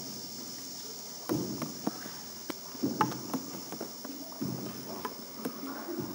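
A wooden paddle boat being paddled: a low knock and splash about every one and a half seconds, with sharp clicks, over a steady high hiss.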